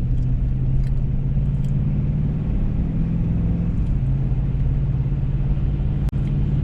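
Ford F-350 pickup's engine and road noise heard inside the cab while driving: a steady low drone whose pitch shifts a little midway. A brief sharp click near the end.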